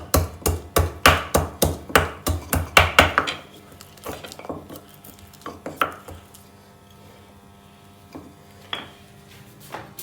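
Giloy stem being pounded with a pestle in a mortar: a steady run of heavy strokes, about three a second, that stops about three seconds in, followed by a few scattered light knocks.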